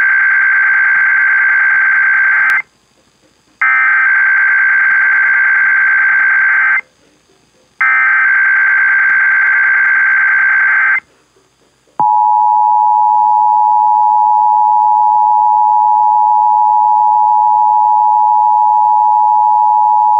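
Emergency Alert System SAME header: three raspy digital data bursts of about three seconds each, a second apart, followed about twelve seconds in by the steady two-tone EAS attention signal, which runs on. It marks the start of an IPAWS Required Weekly Test.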